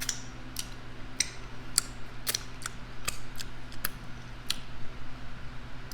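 A run of light, sharp clicks and taps at irregular intervals, about fifteen in all, over a steady low hum.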